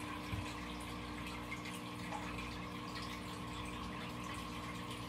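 Aquarium filter running: a steady mechanical hum under water trickling, with a few faint ticks.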